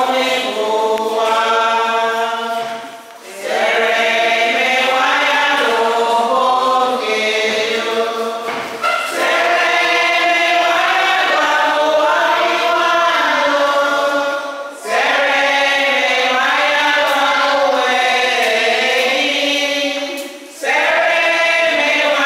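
A group of voices singing a hymn together in long held phrases, with a brief pause for breath about every five to six seconds.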